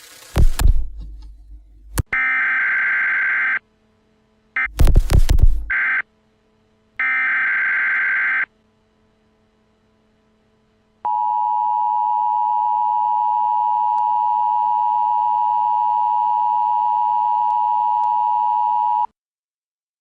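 Emergency Alert System broadcast tones: three short bursts of the screechy SAME digital header, then the steady two-tone EAS attention signal held for about eight seconds and cut off abruptly. A loud crash sounds at the start and again over the second header burst.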